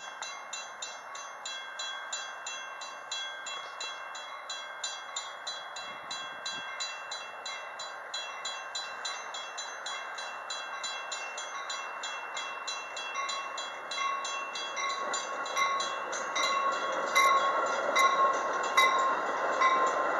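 Railroad grade-crossing warning bell ringing at an even rhythm of about four strokes a second as a Metra commuter train approaches. From about 14 seconds in the train's noise swells louder, with sharp clicks about a second apart, as the bilevel coaches roll into the station.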